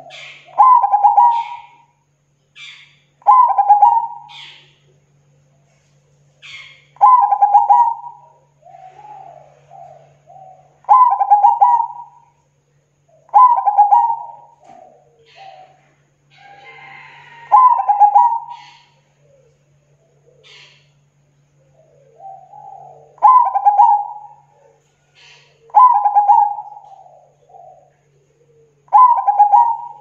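Zebra dove (perkutut) cooing, about nine calls two to four seconds apart. Each call is a quick run of staccato notes ending in a drawn-out coo, with softer notes between the calls.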